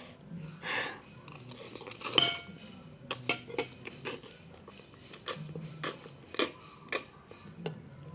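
Cutlery clinking and scraping against a dish during eating, with a quick run of sharp clicks through the second half.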